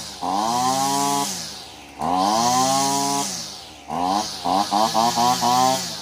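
Husqvarna 225L string trimmer's small two-stroke engine on choke catching briefly on the starter pulls, three times. Each time it revs up, then falls away in pitch and dies out, the last time firing in rapid uneven pops. The owner puts the failure to start down to fuel starvation from a pinched fuel line.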